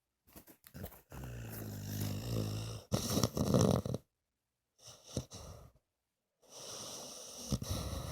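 Sleeping dog snoring. A long, low, pitched snore is followed by a noisy puff of breath, then come a shorter breath and another long snore, with silent gaps between breaths.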